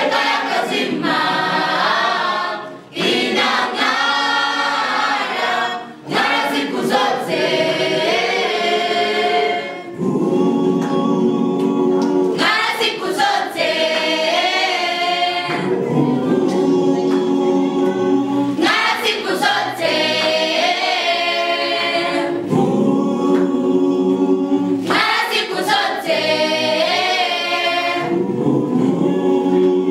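A mixed choir of young male and female voices singing a cappella in harmony, with short breaks between phrases in the first ten seconds and then unbroken singing.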